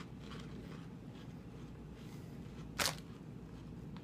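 Faint crunching of baked cheese-puff snacks being chewed over a low steady room hum, and one short crinkle of the plastic snack bag as it is lifted, a little under three seconds in.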